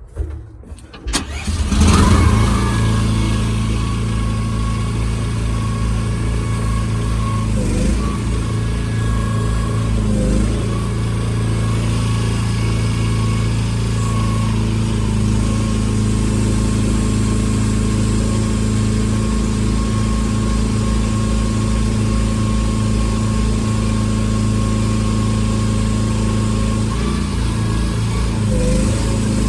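Vicsec VC13 mini excavator's engine cranking briefly and catching about two seconds in, then running steadily.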